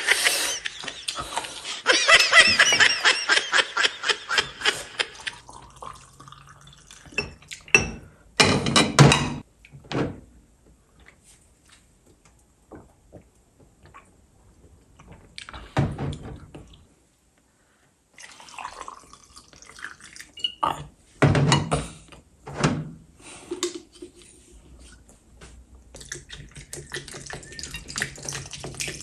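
A man drinking vodka from a glass in gulps: a fast run of short swallowing sounds near the start and again near the end, with a few louder sudden sounds in between.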